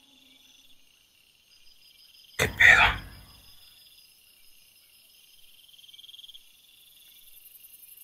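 Faint steady trilling of night insects. A little over two seconds in, a loud sudden rush of noise lasts about a second.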